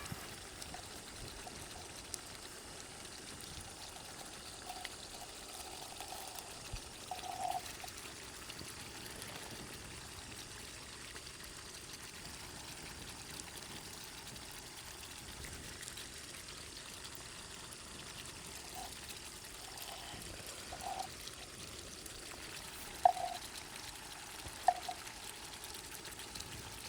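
Marinated chicken cooking in a non-stick pan, a faint steady sizzle and bubble as its liquid cooks off. A few short sharp knocks come near the end.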